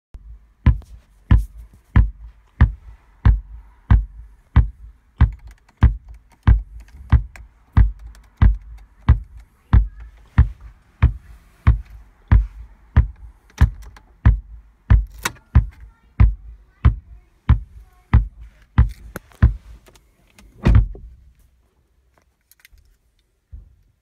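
Volkswagen RNS510 radio/navigation unit stuck in a startup loop, sending a very loud beat of thumps through the car's speakers, about three every two seconds; the beat stops near the end. The fault lies in the unit's PIC16 chip, which needs re-soldering.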